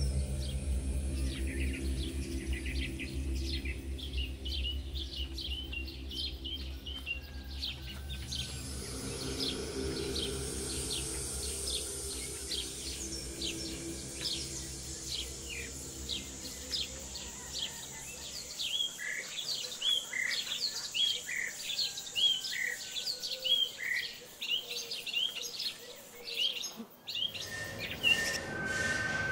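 Birds chirping continuously in quick short calls over a field. For the first two-thirds a low droning music bed sits underneath, then fades and leaves the birdsong alone. Near the end the sound changes and a steady high tone comes in.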